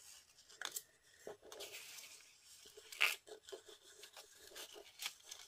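Paper collage pieces being handled and slid into place: soft rustling and crinkling with small clicks, one sharper crackle about three seconds in.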